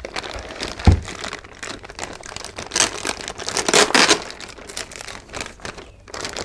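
Clear plastic bag crinkling and rustling in irregular bursts as hands work an oscilloscope out of it, with a single thump about a second in.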